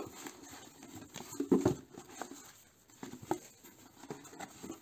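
Hands taking a coloring book and papers out of a cardboard box: soft rustling with a few short knocks of the items against the cardboard, the loudest about a second and a half in.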